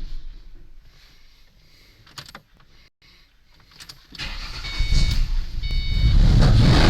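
The 2005 Mustang's 4.0L V6 engine sound falls away, leaving a near-quiet stretch with a few clicks. About four seconds in, the engine starts and runs loudly again. The car's repeating electronic chime sounds over it. The engine has a rough idle and is stalling and backfiring, which the owner cannot yet diagnose.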